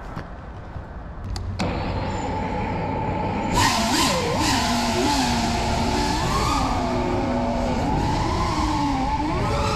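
FPV racing quadcopter's brushless motors and propellers, heard from the drone: a low hum comes on about a second and a half in, and from about three and a half seconds the motors whine at full flight, their pitch swooping up and down with the throttle over a loud rush of propeller wash.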